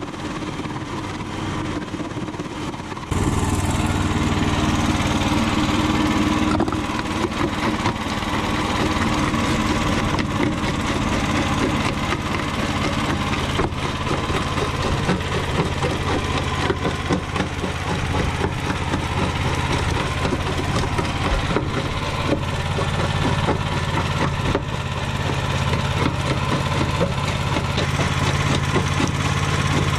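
Small petrol engine running steadily, driving a homemade jaw crusher, while the jaws crack and grind concrete chunks into gravel with many irregular knocks. Louder from about three seconds in.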